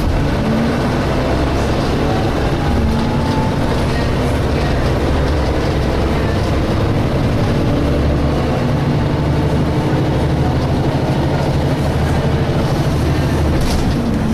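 Inside a DAF SB220 single-decker bus under way: the diesel engine drones steadily under the floor amid road and body rumble, with a faint whine rising and falling over it, the whining the bus is known for, called "hoovering".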